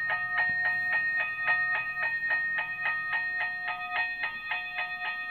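Electronic railroad-crossing bell from a battery-powered toy crossing signal's relay box, switched on: a bright ding repeating steadily about five times a second.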